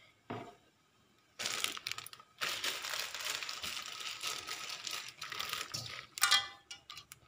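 Thin plastic bag crinkling and rustling as it is handled and its contents are shaken out into a wok. It starts about a second and a half in, runs for about four seconds with a brief break, and ends with a short louder crackle near the end.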